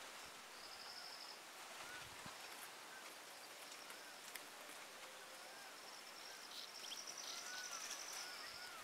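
Faint outdoor ambience: a high-pitched insect trill that comes in briefly about half a second in and again for most of the second half, with short repeated bird chirps that come more often near the end.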